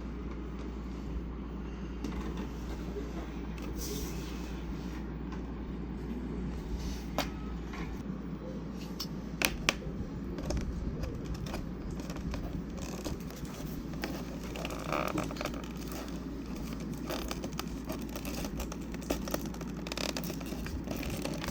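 Cardboard box being opened carefully by hand: scattered clicks, scrapes and rustles of cardboard over a steady low background hum.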